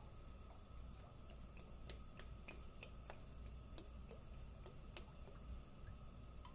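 Faint, irregular ticks and small crackles as cooking oil is poured into a warm skillet, over a low steady hum.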